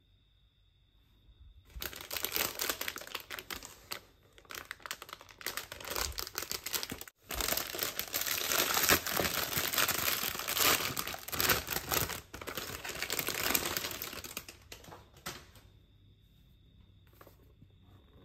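Clear plastic wrapping crinkling and tearing as hands pull it off a cardboard box. The crackling starts about two seconds in, breaks off suddenly for a moment around the middle, and dies down a few seconds before the end.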